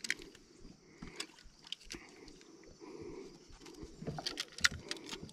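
Scattered light clicks and rattles of a landing net and fishing gear being handled in a plastic kayak, with a denser run of clicks about four seconds in.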